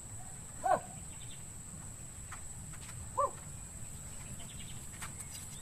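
An animal calls twice, two short pitched calls about two and a half seconds apart, over a steady high whine.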